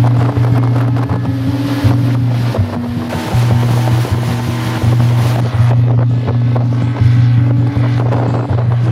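Background music with a strong, steady bass line whose notes change every second or so.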